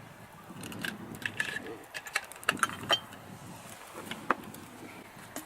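Irregular light clinks and clicks of small metal objects being handled, with a few sharper knocks.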